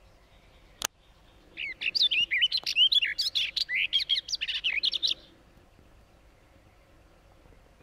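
Barred warbler singing one rapid, chattering warble of many quick notes, lasting about three and a half seconds. A single sharp click comes just before the song.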